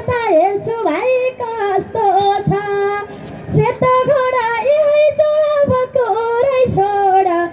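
A woman singing a Nepali dohori folk song into a microphone, one voice holding long notes that waver in pitch, with short breaks between phrases.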